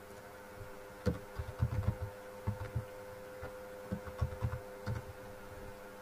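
Computer keyboard typing: a run of irregular soft thumps and clicks of keystrokes from about a second in to about five seconds, over a steady electrical hum.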